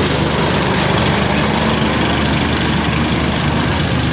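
Mercedes-Benz OH 1526 coach's diesel engine running steadily at low speed as the bus pulls away over a rough gravel road.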